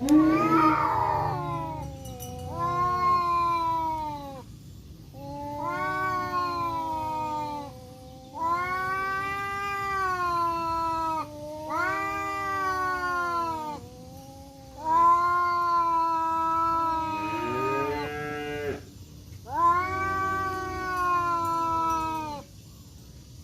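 Two tomcats yowling at each other in a territorial standoff: a run of about seven long, drawn-out, wavering yowls, one after another with short pauses, the two voices overlapping once about three-quarters of the way through. The first call is harsher and noisier than the rest.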